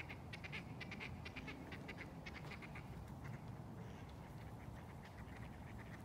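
A flock of gulls calling in short, clipped notes in quick series, densest in the first three seconds and thinning out after, over a steady low rumble.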